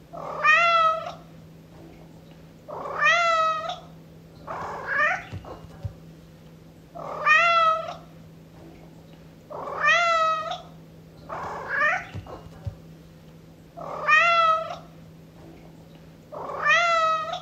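Domestic cat meowing over and over, about eight drawn-out meows a few seconds apart, louder calls alternating with softer ones. A faint steady hum lies beneath.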